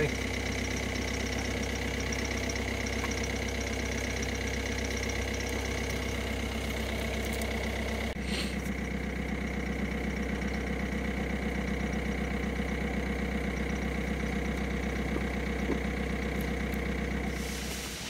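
Car engine idling steadily, with a short click about eight seconds in; near the end the engine sound gives way to quieter outdoor noise.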